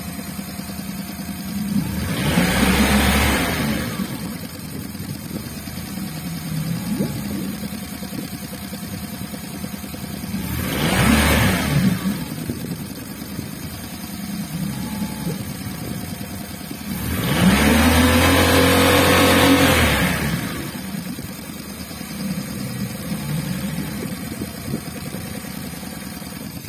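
Tohatsu EFI 30 outboard motor running with its cowling off, idling and revved up three times, the pitch rising and falling back each time, the last rev the longest. It is running on its repaired engine control unit.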